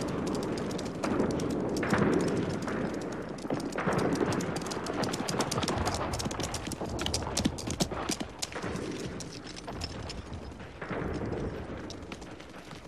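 Hoofbeats of several horses galloping on hard, dry ground, a dense irregular clatter.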